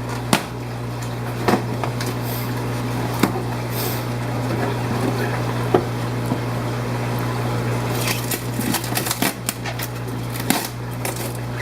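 Steady low hum of fish-room pumps and equipment, with scattered clicks and light knocks of handling that become busier in the last few seconds.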